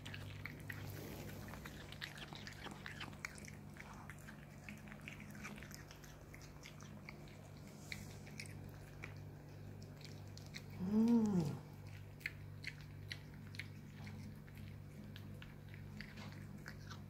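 A cat chewing and biting pieces of raw fish, with many small wet clicks and smacks. About eleven seconds in, one short voice-like sound rises and falls in pitch, and a faint steady hum runs underneath.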